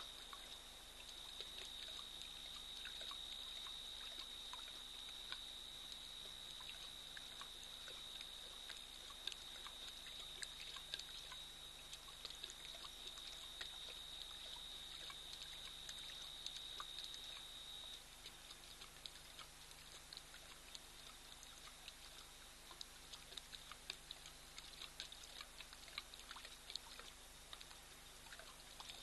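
Faint, irregular wet clicks of a lion lapping water as it drinks, over a steady high-pitched whine that stops about eighteen seconds in.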